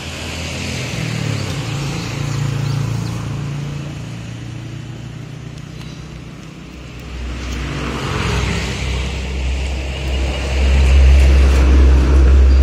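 Motor vehicles passing close by on the road: an engine hum in the first few seconds, then a louder vehicle approaching from about seven seconds in with a rising rush and heavy low rumble, loudest near the end.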